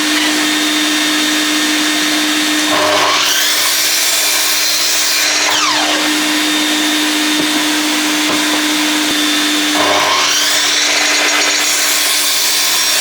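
Electric saw running steadily with a constant motor whine, cutting through wood twice, about three seconds in and again about ten seconds in, as boards are crosscut to length.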